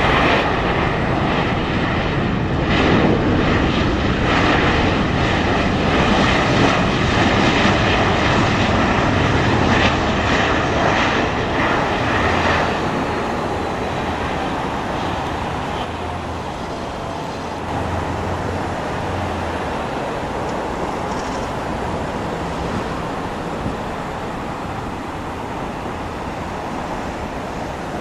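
Boeing 737-800's CFM56-7B turbofan engines running loudly during the landing rollout, with steady whining tones over the noise. It is loudest for the first dozen seconds, then drops to a quieter, steady rumble as the jet slows on the runway.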